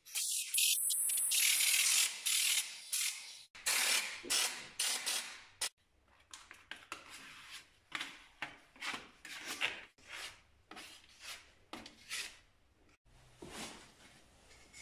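An aerosol can of anti-gravel underbody coating hissing as it sprays, for the first few seconds. Then a hand sanding block rasping back and forth over body filler on a car door, about three strokes a second.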